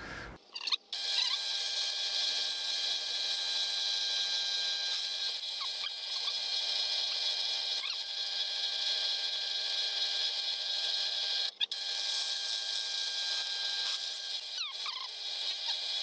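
Bench drill press running steadily while drilling 6 mm holes through a metal workpiece: an even motor whine made of several steady tones. It drops out briefly about eleven and a half seconds in.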